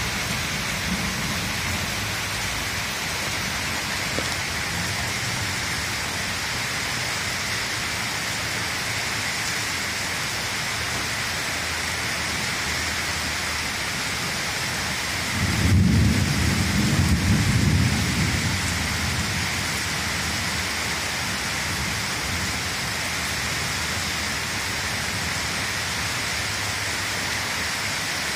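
Steady rain falling, with a low rumble of thunder about halfway through that lasts three or four seconds before fading.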